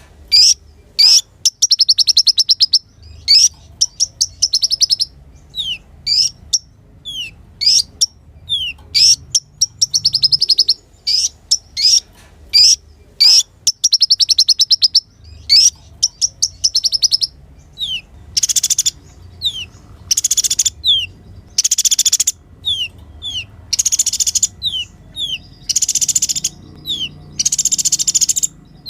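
Kolibri ninja sunbird singing: fast high trills alternating with short falling notes, and from about two-thirds of the way in, harsh buzzy rasps between the falling notes.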